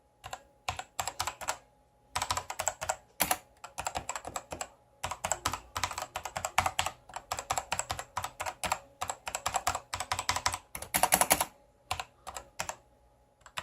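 Typing on an RII K66 mechanical keyboard with Outemu Red switches: rapid key clicks in bursts broken by short pauses.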